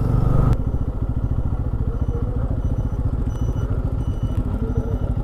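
Motorbike engine running steadily while riding, a rapid even train of firing pulses.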